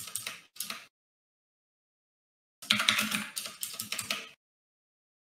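Computer keyboard typing, heard over a voice-call microphone: a short flurry of rapid key clicks at the start, then a louder, longer flurry about two and a half seconds in. Each flurry cuts off abruptly to silence.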